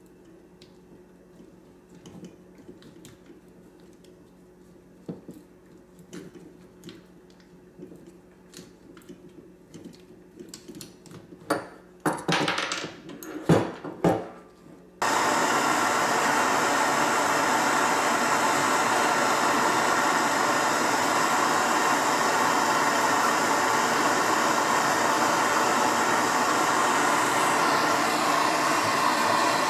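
Handheld gas torch on a yellow fuel cylinder lighting about halfway through and then burning with a loud, steady hiss, heating the turbo actuator to break its seized, factory-Loctited bolts loose. Before it lights, light clicks and clatter of parts and tools being handled, with a few sharper knocks and short bursts just before the flame catches.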